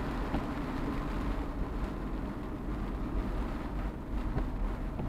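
Car driving on a rain-soaked road, heard from inside the cabin: a steady low rumble of engine and tyres with the hiss of wet road spray.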